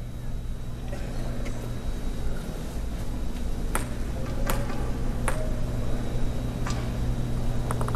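A table tennis ball being bounced before a serve: several sharp, ringing ticks about three-quarters of a second apart, over a steady arena hum. Near the end, a quick cluster of ticks comes as the ball is put into play.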